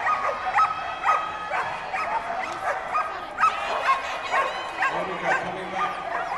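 Several flyball dogs, black-and-white collie types, barking and yipping over one another, several sharp calls a second, with some rising whines: excited dogs being held back before their run.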